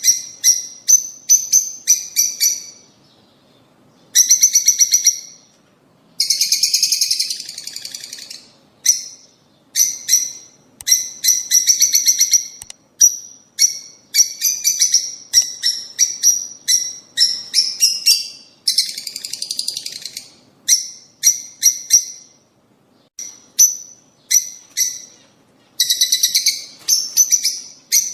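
Lovebirds chattering: fast runs of sharp, high-pitched chirps, broken several times by longer harsh, buzzy calls lasting a second or two.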